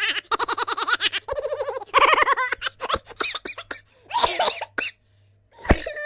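A silly cartoon-style laughing sound effect: high-pitched giggles in several quick, rapidly pulsing bursts with short pauses between them. A sharp click comes near the end, followed by a sound that falls in pitch.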